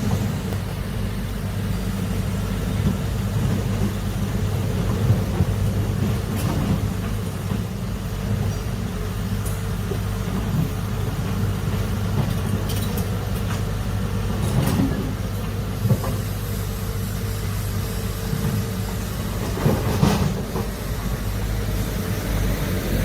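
Heavy excavator engine running steadily under load, with a few short knocks, about 6, 15 and 20 seconds in.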